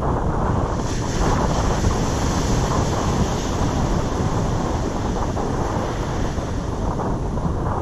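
Steady wind buffeting the microphone, with the rush of surf breaking on the beach underneath.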